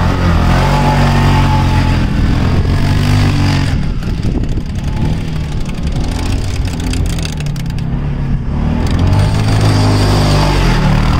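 CFMoto ZForce 550 side-by-side buggy engine revving as it is driven through soft sand, its pitch rising and falling repeatedly.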